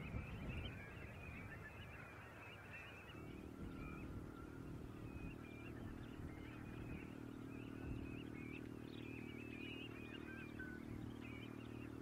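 A large mixed flock of shorebirds and gulls calling continuously in short, high chirping notes. About three seconds in, a steady low engine drone comes in and holds under the calls.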